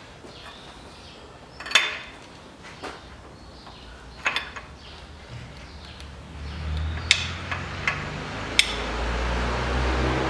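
Metal hand tools and engine parts knocking and clinking, several separate sharp metallic knocks a couple of seconds apart. From about six seconds in, a low rumble builds up beneath them.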